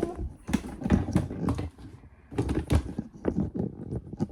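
Small objects clicking and knocking in quick, irregular succession as a travel bag is rummaged through.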